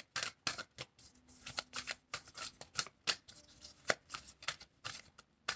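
Playing or oracle cards being shuffled by hand: a run of quiet, irregular soft flicks and slaps.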